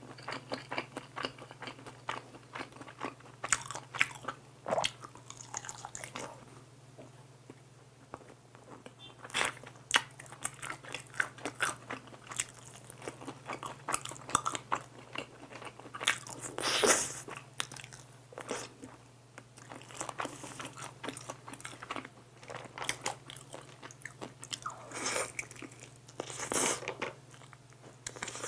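Close-miked eating of glazed fried chicken: crisp crunches as the coating is bitten, then wet chewing, repeating throughout with the loudest bites about 17 seconds in and again near the end. A steady low hum runs underneath.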